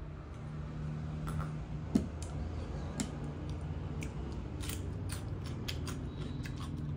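Close-miked eating sounds: a sharp knock about two seconds in as a glass of buttermilk is set down on the table, then a run of crisp, crunchy clicks as raw white radish slices are bitten, over a steady low hum.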